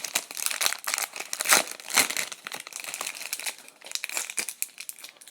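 A hockey card pack's wrapper crinkling and crackling in irregular bursts while it is torn open and the cards are handled.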